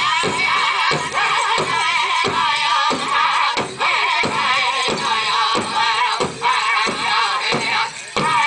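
Powwow drum and singers performing a chicken-dance song. A large drum is struck in a steady beat, about two to three strokes a second, under high, wavering voices singing together.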